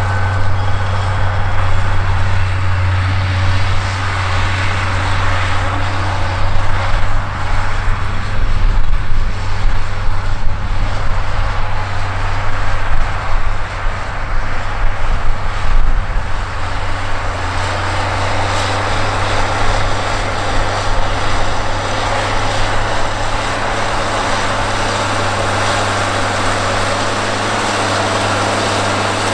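White Field Boss 185 tractor's Cummins 8.3-litre inline six-cylinder diesel running steadily under load, pulling a chisel plow through corn stalks. The engine drone holds steady, with uneven low rumbling through the middle. The sound grows fuller and brighter in the second half as the tractor comes close.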